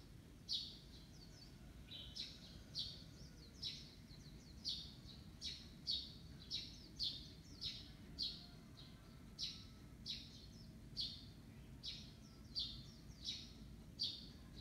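A small bird chirping over and over: short high chirps, each sliding down in pitch, roughly one to two a second, over a faint low background rumble.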